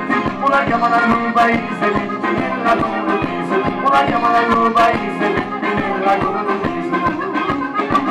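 Live band playing an instrumental folk-style passage: an accordion melody over a steady frame-drum beat, with keyboard and electric guitar.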